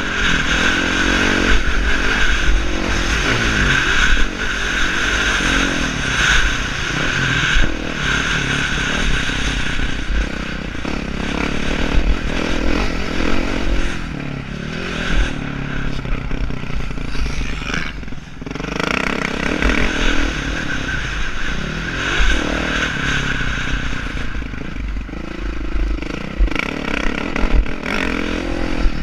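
Dirt bike engine revving up and down as it is ridden round a motocross track, with a steady low rumble of wind buffeting the helmet-mounted microphone. The engine note drops briefly about two-thirds of the way through, then rises again.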